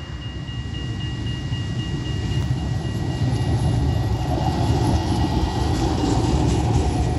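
Tram running on its rails as it approaches, a low rumble growing steadily louder.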